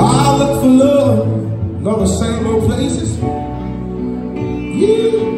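Live male vocal singing long, sliding runs that rise and fall in pitch, in three phrases, over keyboard and guitar accompaniment through a PA system.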